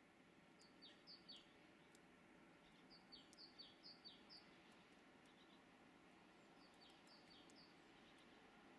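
Faint, high bird chirps in three short runs of four or five quick falling notes each, over a low steady hiss.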